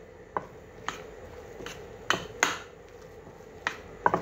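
A metal spoon knocking and scraping against a ceramic dish while stirring a chicken and mashed potato mixture: about seven irregular clinks, the loudest pair about two seconds in.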